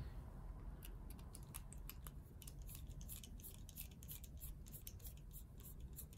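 Faint, quick, irregular light metallic clicking and scraping from the pocketknife's blade being worked by hand on its loose pivot, beginning about a second in. The pivot is not yet tightened down, so the blade free-spins.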